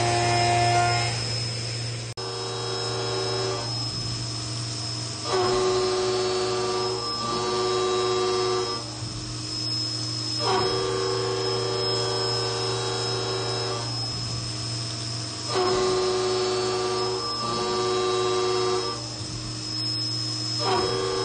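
CNC milling machine's end mill cutting a billet aluminum Ford big-block engine block under coolant: a steady machining hum with a pitched whine that comes and goes every few seconds as the cutter moves into and out of the cut.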